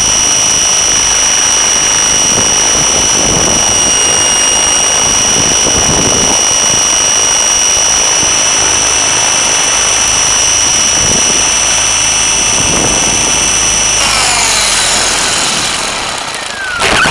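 Thunder Tiger Raptor E550 electric RC helicopter's motor and rotor running, heard from a camera on the airframe: a steady high whine over rushing rotor noise. About 14 s in the steady whine breaks up into falling tones and the sound dips, as the motor winds down.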